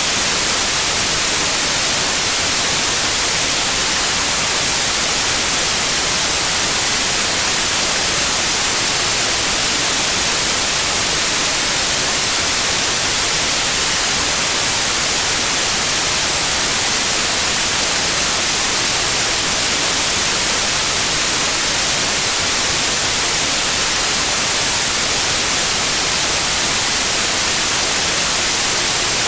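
Synthetic white noise, a steady even hiss, for tinnitus sound therapy. About halfway through, a steady high-pitched 9645 Hz tone joins the noise and holds to the end.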